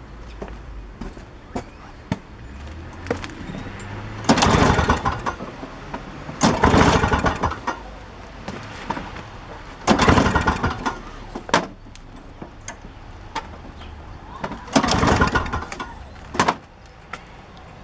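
Toro CCR snowblower's small two-stroke engine pulled on its recoil starter four times, each pull turning it over with rapid pulsing for about a second without it staying running: the freshly cleaned carburetor is not yet getting enough fuel.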